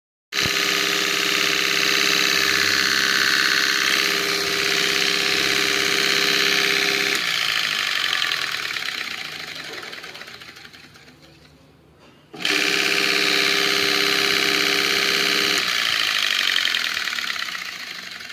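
Domestic stone atta chakki (flour mill) running on its electric motor with freshly changed bearings: a steady mechanical whir with a motor hum. About seven seconds in the hum stops and the whir fades away as the mill coasts down after switch-off; the same run and coast-down comes again from about twelve seconds in.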